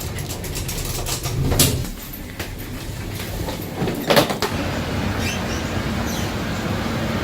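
Train running with a steady low rumble, with two sharp knocks about one and a half and four seconds in.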